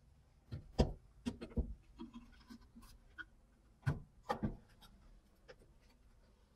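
Steel plates of a homemade welding magnet clicking and knocking as they are handled and fitted together by hand, with faint rubbing between. The knocks come in two short clusters: several in the first two seconds, then two or three more around four seconds in.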